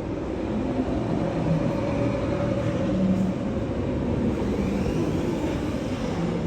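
TRON Lightcycle Run roller coaster train running along its track, a steady rushing noise that swells in the first second and holds.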